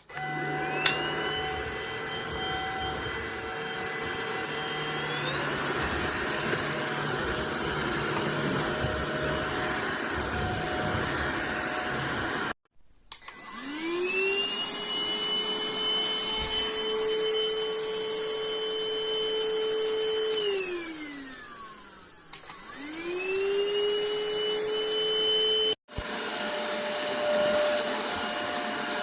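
Stanew 22.2V 150W cordless stick vacuum running with a steady motor whine that steps up in pitch about five seconds in. Midway it cuts out abruptly, then spins up, runs, winds down with a falling whine and spins up again before cutting off once more.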